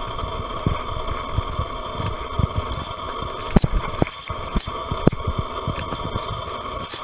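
Footsteps on a forest trail: irregular low thuds and a few sharp clicks, the sharpest about three and a half seconds in, over a steady background drone of several fixed high pitches.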